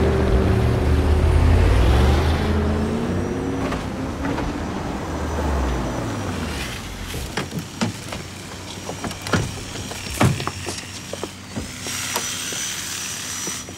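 Heavy truck engine running with its pitch sliding up and down, fading out about six seconds in. After that come quieter street sounds with scattered short clicks and knocks.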